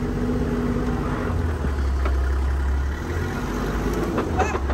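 Toyota Land Cruiser's engine running, heard from inside the cabin: a deep steady drone, with a few knocks near the end.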